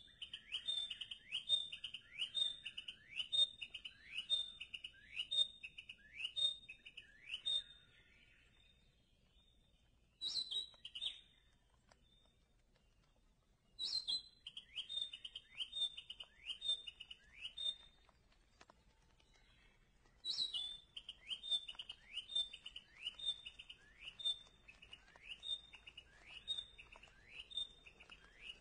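A songbird calling in bouts. Each bout opens with a loud, sharp note, followed by a run of short, rising, high notes at about two a second. The bouts stop and restart a few times, with pauses of a couple of seconds between them.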